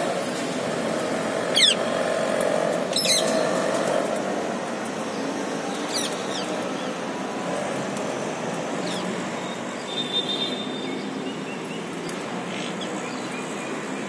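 Rose-ringed parakeets giving short, shrill screeches a few times, the loudest about one and a half and three seconds in, over a steady background hum.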